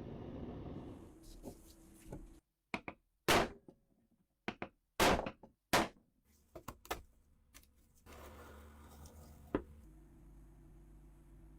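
Metal parts of a rusty MP40 submachine gun being handled, giving a series of sharp knocks and clacks. Three of them are loud, with lighter clicks in between.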